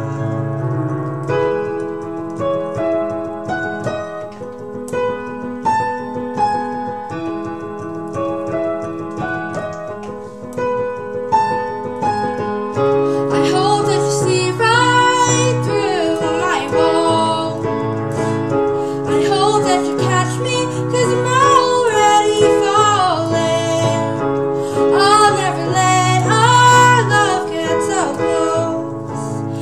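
Digital piano playing sustained chords on its own, then a woman's voice comes in singing over it about halfway through.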